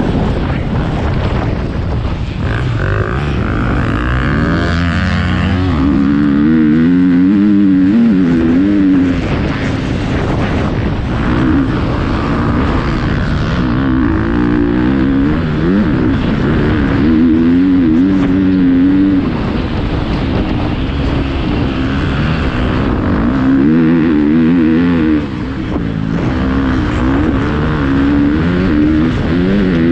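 Motocross bike engine being ridden hard, revving up and dropping back again and again as the rider accelerates, shifts and rolls off.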